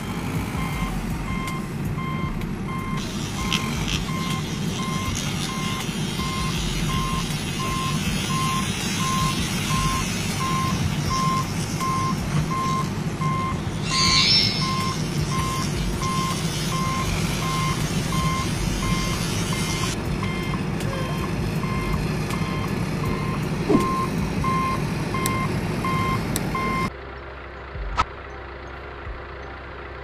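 Evenly paced electronic reversing-alarm beeps over a steady low engine rumble, with a brief loud rush of noise about halfway through. Both the beeping and the rumble cut off suddenly near the end.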